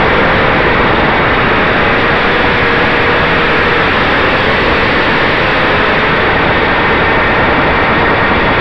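ZMR250 quadcopter's brushless motors and propellers in flight, recorded by the camera mounted on the quad: a loud, steady rushing noise with a faint whine that wavers slightly in pitch.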